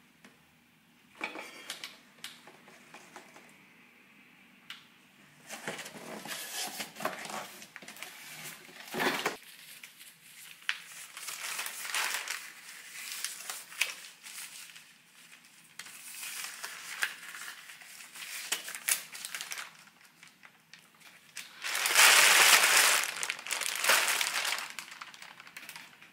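A large plastic bag of kimchi crinkling and rustling in irregular bursts as it is handled and set on a scale, loudest a few seconds before the end.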